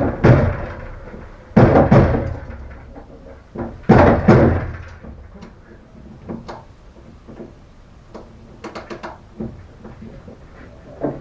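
Metal clunks and bangs from a Citroën 2CV's body parts being worked on for removal: three heavy knocks with a ringing tail in the first few seconds, then lighter clicks and taps.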